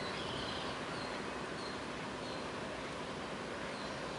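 Steady outdoor background noise, with a bird repeating a short high chirp about every two-thirds of a second.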